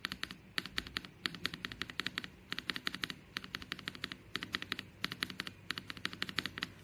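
Mechanical keyboard switches being typed on: quick clusters of key clicks, several keystrokes at a time, separated by short pauses.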